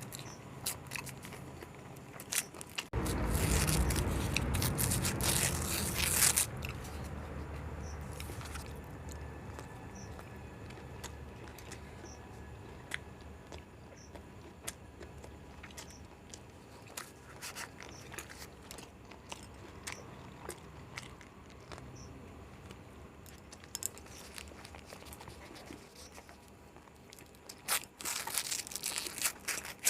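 A person eating an egg roll close to the microphone, with biting and chewing clicks and crunches throughout. A louder, noisy burst lasts about three seconds a few seconds in, and another comes near the end.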